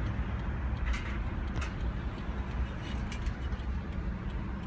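Steady low rumble of a car moving slowly in city traffic, heard from inside the cabin, with a few faint clicks.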